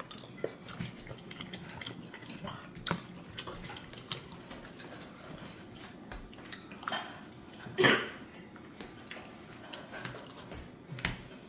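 Cutlery clinking and scraping against plates during a meal: scattered light clicks and knocks, with one louder short sound about eight seconds in.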